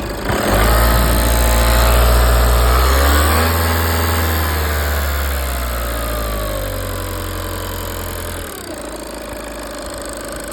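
Audi 2.0 TDI common-rail diesel engine revved up from idle, climbing steeply and then a second time, after which the revs sink slowly before dropping back to idle about eight and a half seconds in. The engine has a ticking noise that the owner ties to engine failure.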